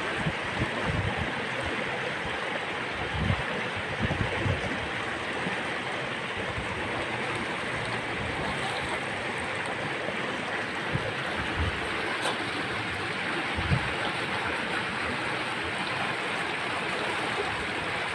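Steady rush of flowing river water around rocks, with a few soft low bumps.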